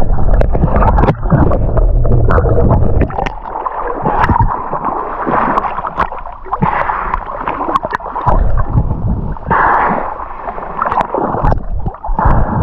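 Water splashing and gurgling around a camera that moves between underwater and the surface, with rising bubbles, a low rumble and scattered sharp clicks.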